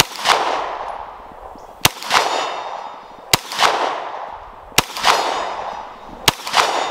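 Five shots from a Glock 19X 9mm pistol, about a second and a half apart. A fraction of a second after each shot comes the clang of a bullet hitting a hanging steel target, which rings and fades.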